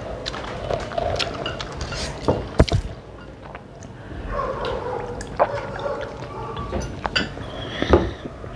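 Close-miked eating and drinking: scattered clicks and knocks of hands and dishes at the table, the loudest two about two and a half seconds in, then water gulped from a plastic bottle.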